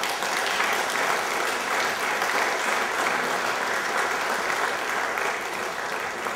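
Congregation applauding: steady clapping from many hands that eases slightly near the end.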